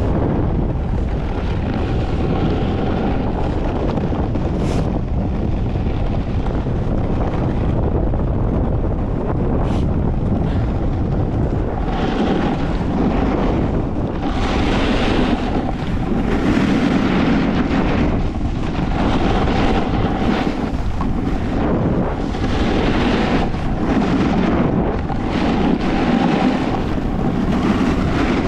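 Wind rushing over the microphone during a fast snowboard descent, with the board sliding over packed piste snow. From about halfway in, the noise swells every two to three seconds as the board scrapes through turns.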